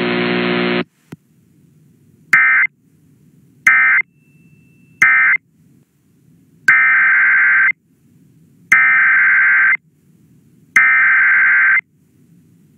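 Emergency Alert System digital data bursts: three short harsh electronic bursts about a second apart, the end-of-message code closing one tornado warning, then three longer one-second bursts, the header code that opens the next warning. Before them, a steady buzzing tone cuts off just under a second in.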